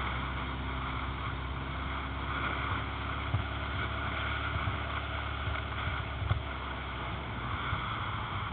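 Yamaha XJR air-cooled inline-four motorcycle engine running steadily on the move, with wind rushing over a helmet-mounted camera. Two short knocks come about three and six seconds in.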